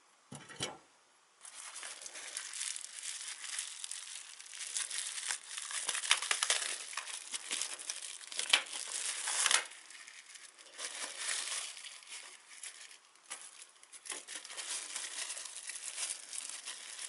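Plastic bubble wrap being unwrapped by hand, crinkling and rustling in an irregular run. There is a short knock about half a second in.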